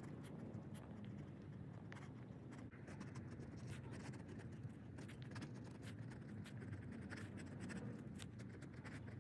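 Fine nib of a brass Kaweco Sport fountain pen scratching across paper as words are written: a run of faint, quick, irregular pen strokes.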